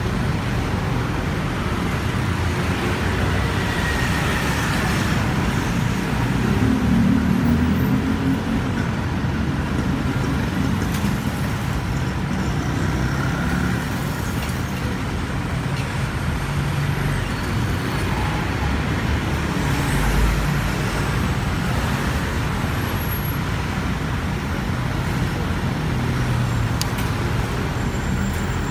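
Steady rumble of road traffic, with vehicle engines passing that swell and fade.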